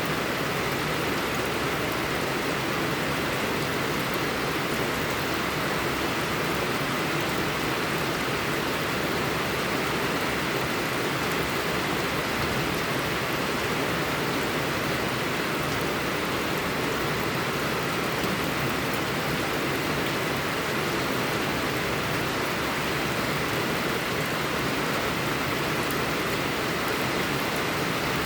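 Steady rushing blizzard wind noise with soft fireplace crackling in the form of faint scattered clicks.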